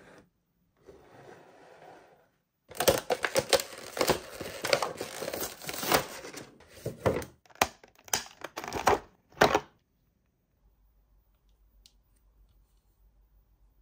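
Packaging being crinkled and torn open by hand: about seven seconds of quick, irregular crackles and rips that start a few seconds in and stop suddenly.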